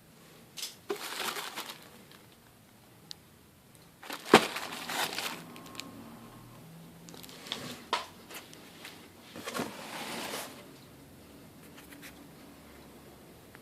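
Packaging being handled: plastic or foam crinkling and rustling in four short bursts, with a sharp knock about four seconds in and a few lighter clicks.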